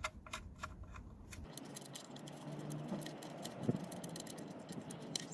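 Light metallic clicks and rattles as the oil drain plug is turned by hand back into a VW Golf's sump, with one louder click partway through. A faint steady hum sits underneath.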